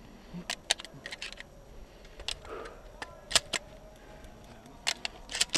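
Pump-action shotgun being reloaded between shots: an irregular series of sharp metallic clicks as shells are pushed into the magazine tube and the gun is handled.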